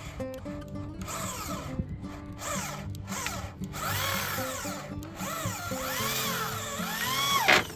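A power drill's motor whines, its pitch rising and falling over and over as the speed is varied. It starts about a second in and stops abruptly near the end after a final quick rise, with background music underneath.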